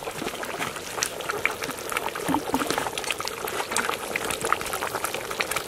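A pot of potato greens with chicken bubbling at a boil, a steady run of small irregular pops and bubbles.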